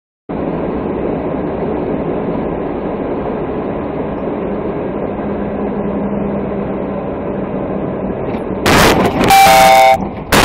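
Steady engine and road noise inside a moving vehicle, picked up by a dashcam's microphone. Near the end a vehicle horn blares loudly in two long blasts.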